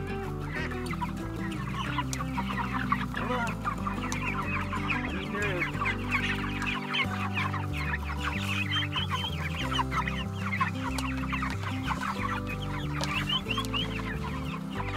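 A flock of young chickens cheeping and clucking without pause as they crowd to a freshly filled feeder, with background music underneath.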